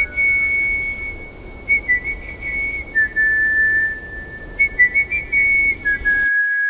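Whistled melody in long, held notes over a soft backing track. The backing cuts off suddenly near the end, leaving the last whistled note ringing out.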